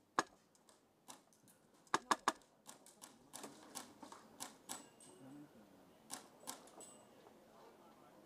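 Irregular sharp clicks and cracks of airsoft play: a single click, a quick burst of three about two seconds in, then scattered ones.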